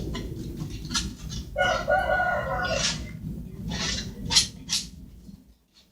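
Spoon stirring glue-based slime in a container, with scattered clicks and scrapes. About one and a half seconds in comes a drawn-out pitched call lasting about a second.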